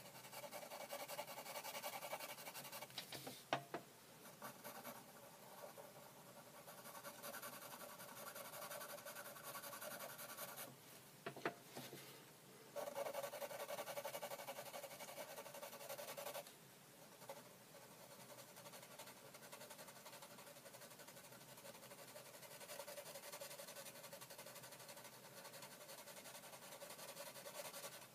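Pencil scratching across paper in repeated shading strokes, with short pauses and a couple of light ticks.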